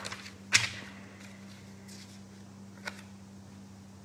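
A sharp paper snap as a sheet is flipped over on a desk, about half a second in, with a smaller click near three seconds. A steady low hum runs underneath.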